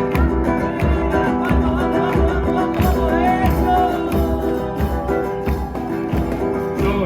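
Music with a steady beat, guitar and percussion, with a voice singing briefly in the middle.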